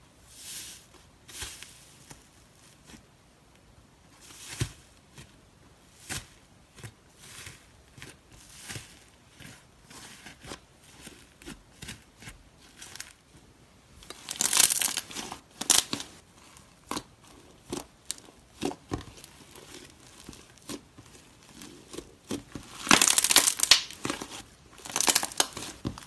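Iceberg slime crunching and crackling as fingers press through its dried top crust and then squeeze and pull the slime apart. The crackles come in many short, irregular bursts, loudest in a dense run about halfway through and again near the end.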